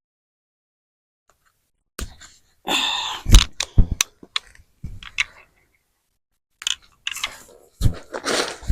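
Hands digging and sifting through loose potting soil in a container: irregular crunchy scrapes and rustles, starting about two seconds in.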